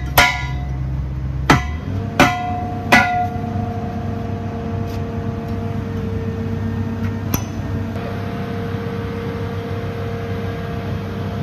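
Sharp metal-on-metal clanks on a steel trench-shield spreader pipe and its collar as the pipe is pinned in place: four strikes in the first three seconds and a fifth about seven seconds in. The steel rings on with a steady tone for several seconds after the strikes.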